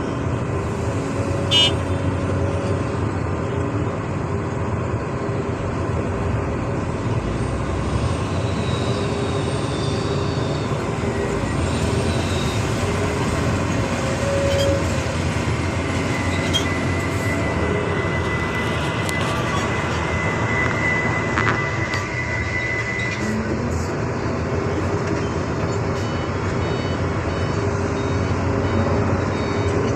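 Diesel engines of an excavator and a dump truck running steadily as the excavator loads the truck. A thin, high, steady tone sounds for several seconds about halfway through.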